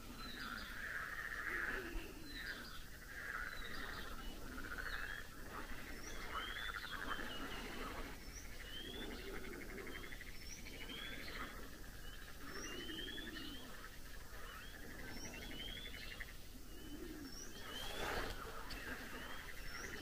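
Evening chorus of frogs, their pulsing croaks repeating about once a second, with a bird giving short rising whistles over them. A brief rush of noise comes about two seconds before the end.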